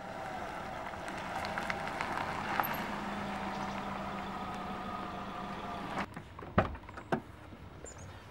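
Car engine idling steadily, then switched off about six seconds in. Two sharp clicks of the door latch and the driver's door opening follow.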